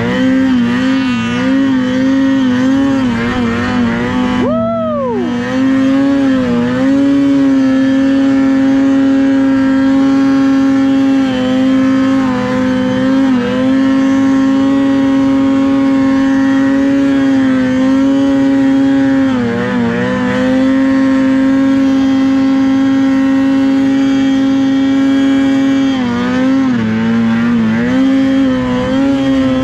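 Polaris Khaos 155 snowmobile's two-stroke engine running hard at high revs, heard up close from the sled, holding a steady pitch and dipping briefly four or five times as the throttle eases and comes back on.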